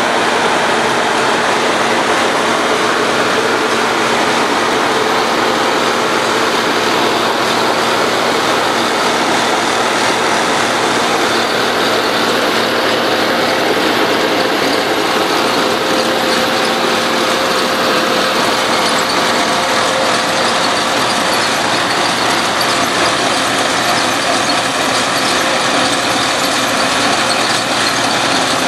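Mastenbroek 10/12D drainage trencher working under load: its engine and digging chain running steadily as it cuts a trench, a loud even drone with a constant hum through it.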